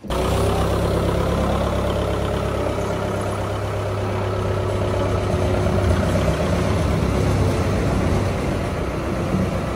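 Heavy vehicle's engine running steadily at idle, a low, even hum with no change in speed.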